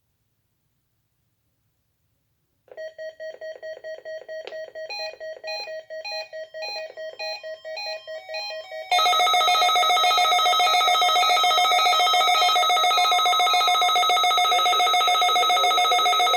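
Electronic tones. About three seconds in, a pulsing tone pattern with short higher blips begins. About nine seconds in, a much louder steady chord of several tones with a fast ripple takes over and holds.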